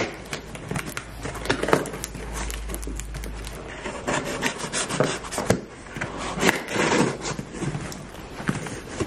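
Scissors slitting the packing tape along the seam of a cardboard shipping box, blade working through tape and cardboard in a run of uneven cutting strokes.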